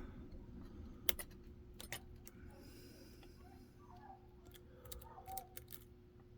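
Scattered small metallic clicks of a hook pick and tension wrench working the pins in a Kaba lock cylinder with security pins. There are about ten clicks, some in quick pairs, and the sharpest comes about a second in.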